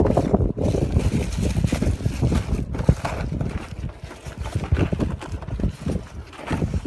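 Wind buffeting the microphone: an uneven low rumble without words.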